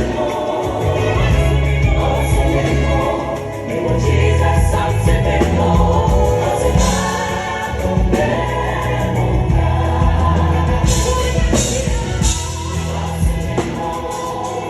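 Live gospel music: a band with a heavy bass line accompanying group singing, with cymbal crashes now and then.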